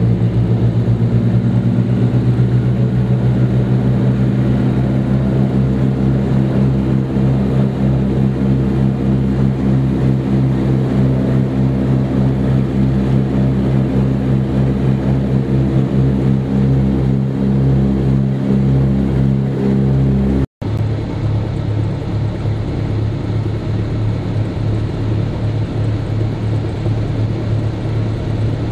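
Twin de Havilland Gipsy Major engines of a DH84 Dragon biplane running steadily in flight, heard from inside the cabin as a loud, even drone. The sound breaks off for a split second about two-thirds of the way through, then resumes.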